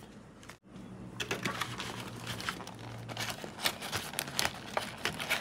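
Thin clear plastic cake box crinkling and crackling as it is handled, a rapid run of small sharp crackles starting about a second in.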